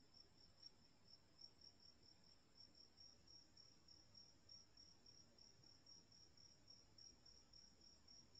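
Faint, steady chirping of crickets: a high trill pulsing several times a second.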